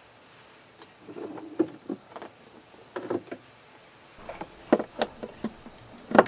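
A run of irregular knocks, taps and clatters of objects being handled, about a dozen. The loudest come near the end.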